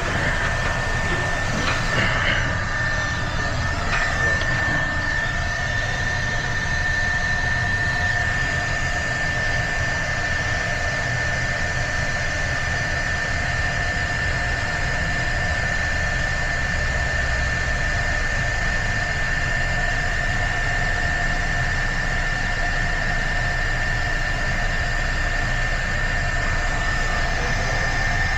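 Electric heat gun running steadily: a constant high whine over the rush of its fan, with a few light knocks in the first few seconds.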